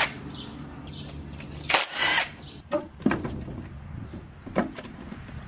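A power tool runs in one short burst about two seconds in, backing out a fastener during an engine teardown. A few short metallic clicks and knocks follow as parts are handled.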